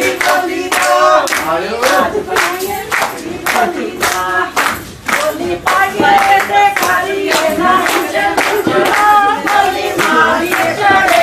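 A group of women singing Punjabi boliyan for giddha, with hands clapping along in a steady, even beat.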